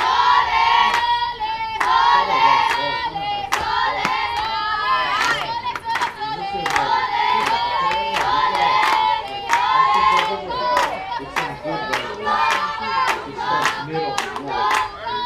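A group of young voices chanting a softball dugout cheer together, with sharp hand claps keeping an even beat of about two to three a second.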